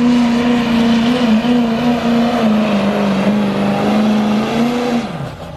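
Chevrolet Silverado 2500HD's Duramax diesel V8 at full throttle, pulling a weight-transfer sled. The engine note holds high and steady, dips slightly in pitch midway, then winds down quickly near the end.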